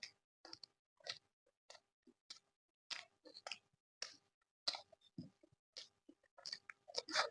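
A person chewing and eating, close to the microphone: short, irregular mouth sounds, often about a second apart, with silent gaps between them.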